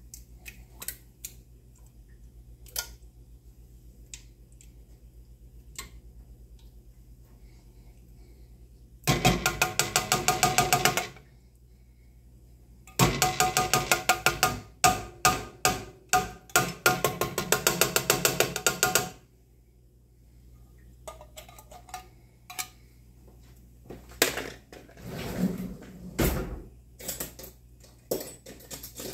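Metal can of condensed cheddar soup being knocked and shaken against a cooking pot to get the thick soup out, in two rapid runs of ringing knocks, one about two seconds long and then one about six seconds. Scattered clinks and scrapes follow.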